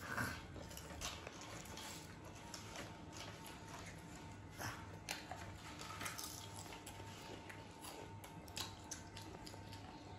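Faint, irregular crunching of potato chips being bitten and chewed, over a steady low hum.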